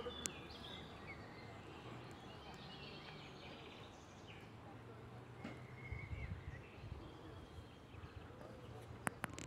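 Faint countryside ambience: birds chirping here and there over a low, steady rumble that swells a little past the middle, with a few sharp clicks near the end.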